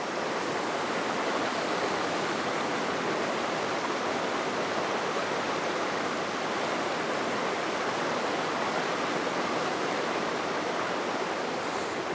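Steady rushing of a small waterfall pouring into a mountain stream pool, an even, unbroken water noise.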